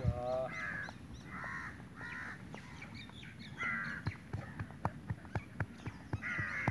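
Crows cawing repeatedly, with a run of short sharp clicks in the second half.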